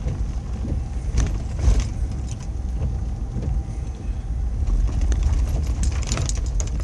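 Steady low road and engine rumble inside a moving vehicle's cabin, with a few short clicks or taps over it.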